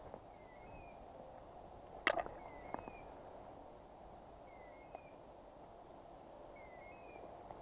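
A hunting dog's beeper collar sounding a short two-note electronic chirp about every two seconds. Twigs and dry leaves crackle underfoot, loudest with a sharp snap about two seconds in.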